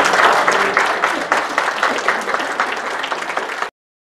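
Congregation applauding: a dense patter of many hands clapping that eases slightly, then cuts off suddenly near the end.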